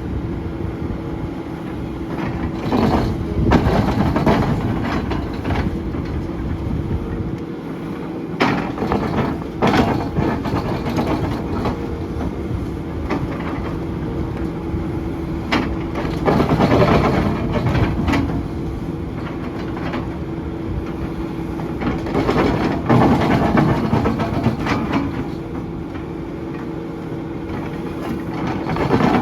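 SANY SY500H hydraulic excavator running under load with a steady engine and hydraulic hum while working its ripper, with several louder stretches of grinding and clanking as the ripper tooth tears through the ground.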